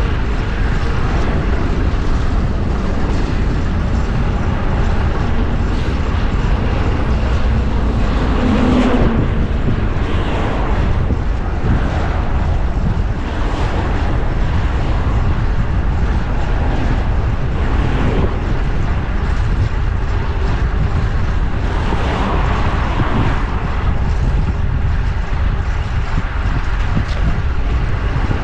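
Steady wind rush on a GoPro microphone while riding a bicycle through city traffic, with vehicles passing.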